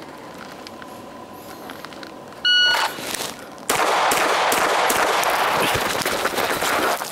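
A shot timer beeps once about two and a half seconds in. About a second later an airsoft 2011 pistol starts firing fast strings of shots, which keep going almost to the end.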